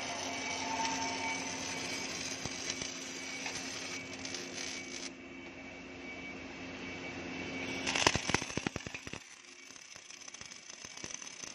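MAG welding arc crackling and hissing as an automatic welding machine runs a seam joining spiral fins to a shaft, over a steady machine hum. A burst of sharp crackles comes about eight seconds in, and then it is quieter.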